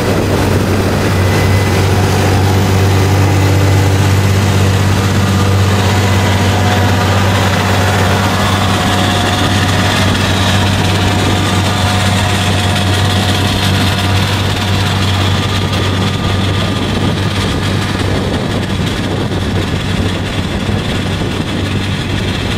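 Large farm tractor's diesel engine running steadily under load as it pulls a tillage implement through the soil, a low, even hum that does not change.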